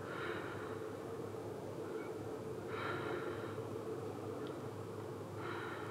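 Three breathy exhalations about three seconds apart, over a steady low hum.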